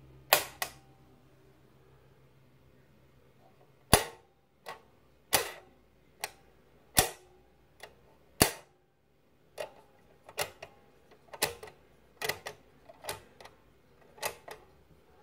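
Sharp clicks from the push-buttons of a 1970s Waco blackjack slot-machine novelty lighter, pressed one at a time to turn up the playing cards in its windows. A pair of clicks comes just after the start, then a pause of about three seconds, then a steady run of single and paired clicks.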